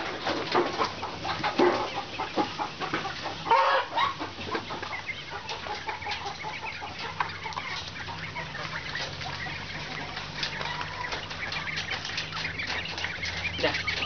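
A flock of caged quail chirping and calling, with many short clicks and scratches throughout. A low steady hum joins about six seconds in.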